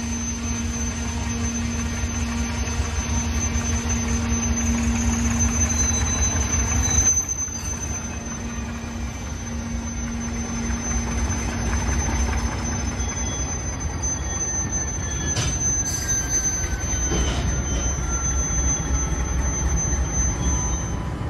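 Alco C420 and MLW M420 diesel locomotives working a freight train past at close range, their 12-cylinder Alco 251 engines making a heavy, steady low rumble. Thin, high steel-wheel squeal sounds over it from the curved track.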